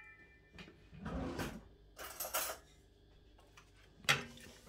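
Quiet kitchen handling noises: a couple of soft scrapes and knocks, then a sharper clink of a metal spoon against the air fryer basket about four seconds in as roasted potatoes are scooped out.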